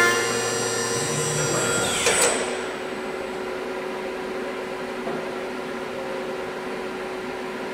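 CNC machining center milling aluminium, a 12 mm three-flute endmill at 7,000 rpm cutting a contour under coolant, giving a steady whine of several tones. About two seconds in the cut breaks off with a brief rasp, and the sound drops to a quieter steady hiss of coolant spray. A steady hum at the cutter's tooth-passing pitch runs on under the hiss.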